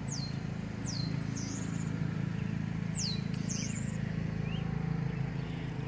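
Birds chirping: several quick, high whistles that sweep downward, plus a few short chirps, over a steady low hum.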